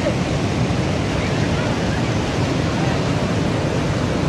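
Steady rush of water from an overflowing lake spilling over its bank or weir, even and unbroken.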